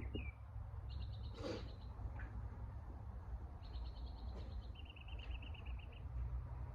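Songbirds chirping and trilling: a quick trill of repeated high notes about a second in, another a few seconds later that runs straight into a lower, faster series of notes, all over a low steady rumble.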